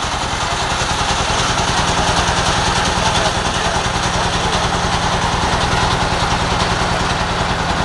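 Inboard engine of a passenger motor boat running steadily under way, a fast, even low throb, with a constant hiss of water and wind over it.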